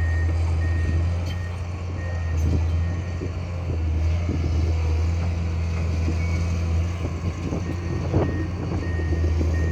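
Excavator diesel engine running steadily, with a high beeping alarm sounding about twice a second for the first couple of seconds and again near the end. A few knocks come about eight seconds in.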